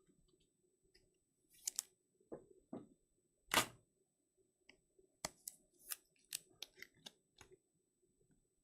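Trading cards being handled and slid into rigid plastic toploaders: scattered sharp clicks and plastic snaps, the loudest about three and a half seconds in, then a quick run of clicks between about five and seven and a half seconds.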